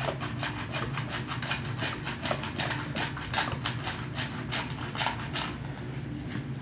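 A big dog wolfing down dog food from a stainless steel bowl: fast, rhythmic crunching and clinking against the metal, about four a second, eating so fast it finishes a bowl in about 45 seconds. The clicks pause briefly near the end as it lifts its head, then go on.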